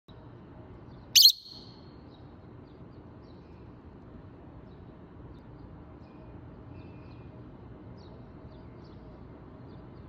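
A rosy-faced lovebird gives one loud, sharp screech about a second in. Faint, scattered chirps of wild birds outside follow over a steady low background noise.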